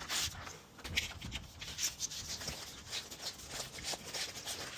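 Irregular rubbing and scraping handling noise with scattered light clicks.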